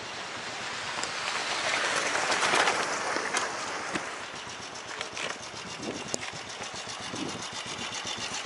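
Motorcycle riding over a rough gravel road: stones crunching and rattling under the tyres with wind on the helmet microphone, swelling loudest about two seconds in. Toward the end the noise drops and an even engine beat comes through as the bike slows.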